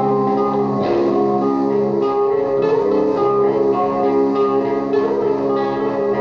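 Electric guitar played through an Orange amplifier, several held notes ringing together over a repeating looped layer of guitar. The notes change about a second in.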